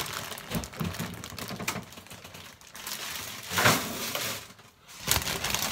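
Plastic grocery bags and wrapped food packages rustling and clicking in irregular bursts, with a freezer door being opened partway through.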